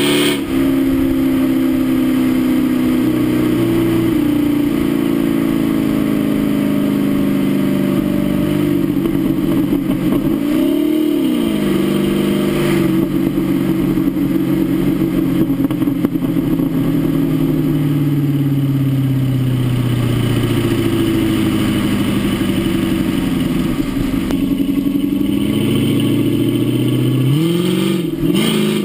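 Dodge Charger R/T's 5.7-litre Hemi V8 running through an aftermarket Daytona exhaust while the car is driven at speed. The engine pitch mostly drifts slowly down, with a brief rise and fall about eleven seconds in and rises again later and near the end.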